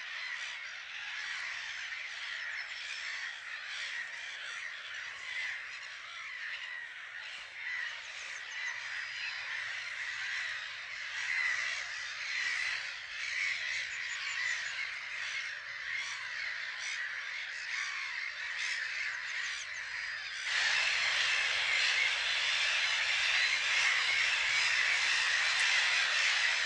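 Black-headed gull breeding colony calling: many gulls calling at once in a dense, continuous chorus. It grows louder and fuller about twenty seconds in.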